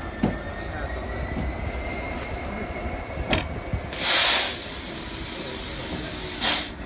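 GBRf Class 66 diesel locomotive, an EMD two-stroke V12, running slowly at low power, with a faint thin wheel squeal and a few clicks. About four seconds in, and again near the end, come two loud hisses of about half a second each.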